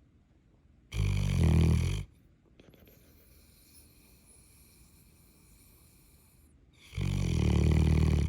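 Neapolitan mastiff snoring loudly: two long, low snores about six seconds apart, each lasting about a second, with faint breathing between them.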